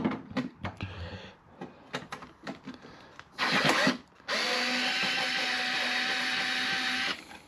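Light clicks and knocks of handling, then a power drill runs briefly and then steadily for about three seconds with an even whine, backing out the self-tapping screws that hold a Jeep TJ's cowl panel.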